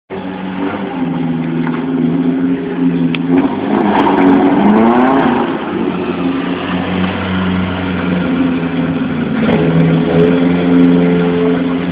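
Engine of a Citroën BX stripped to its bare chassis running as the car is driven, revving up with a rising and falling engine note about four seconds in and climbing again later.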